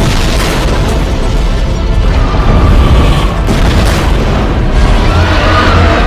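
Giant-monster battle sound effects over film score: a sudden loud boom at the start, then continuous heavy low rumbling and crashes under music.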